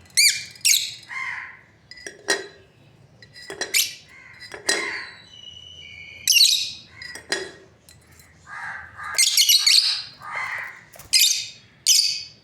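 Lovebirds (small parrots) chirping and squawking: a rapid, irregular series of shrill, sharp calls, some with quick pitch sweeps, mixed with a few lower, shorter chirps.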